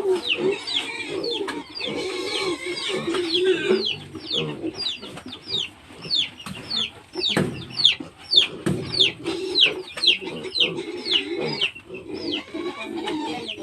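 Chickens clucking, with a continuous string of short, high, falling peeps about two or three a second over a low wavering murmur.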